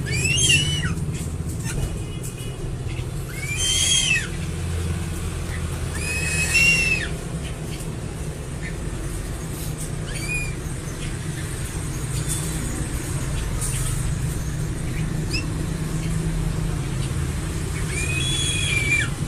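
Crested eagle giving whistled calls, each a short note that rises and then falls, about six of them a few seconds apart, the fifth faint. A steady low rumble runs underneath.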